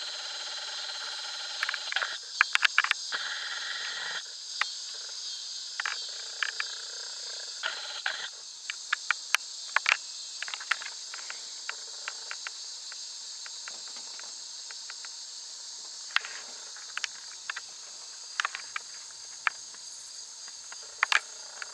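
Steady high-pitched chorus of crickets and other insects, with many short sharp clicks scattered throughout. No thunder is heard.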